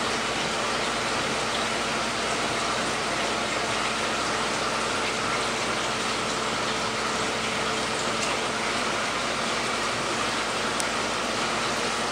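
Steady rush and splash of running water from an aquarium's filtration, with a faint steady hum underneath.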